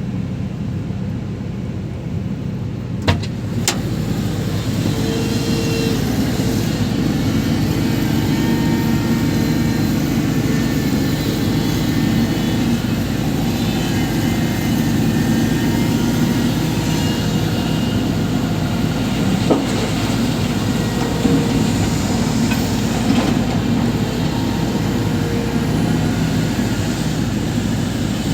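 Cat 350 hydraulic excavator's diesel engine running steadily at working speed while loading coal, with two sharp knocks a little after three seconds in.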